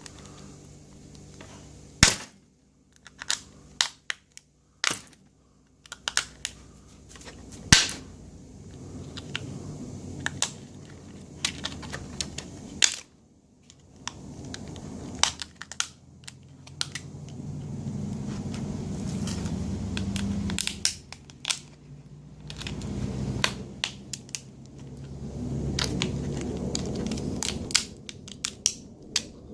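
Stiff plastic blister packaging crackling and clicking as a padlock sealed inside it is handled and worked through the plastic, with scattered sharp snaps and longer stretches of rubbing and handling noise.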